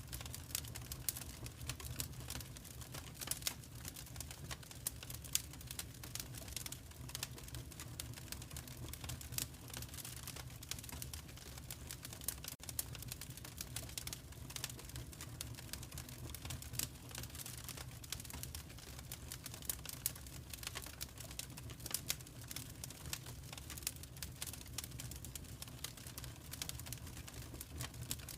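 Fireplace fire crackling: frequent irregular snaps and pops over a low steady rumble.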